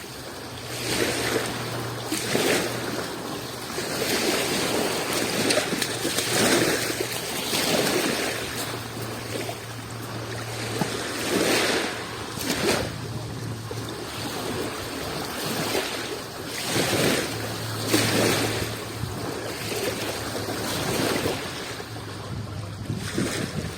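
Small Adriatic Sea waves washing in against the shore, one swell after another every second or two.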